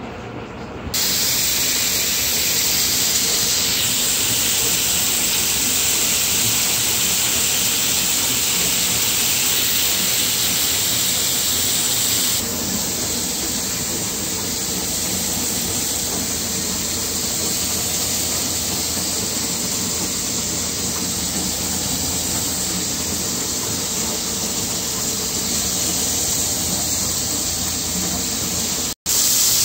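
A steady, loud hiss that sets in about a second in and shifts slightly in tone about twelve seconds in. It cuts out for a moment near the end.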